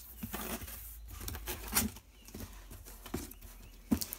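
Cardboard shipping boxes being handled and set down: rustling and sliding with a series of knocks, the loudest about two seconds in and near the end.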